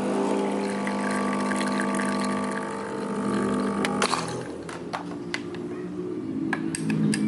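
A kitchen appliance's motor hums steadily over a watery hiss, then cuts off with a click about four seconds in, followed by a few light clicks and taps.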